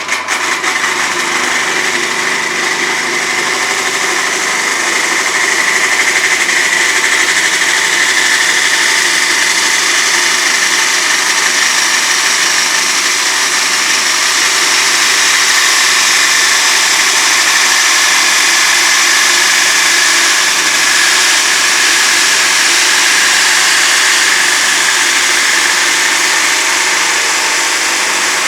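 Homemade pendulum cut-off saw running, its spinning disc cutting through stock in one long, steady cut.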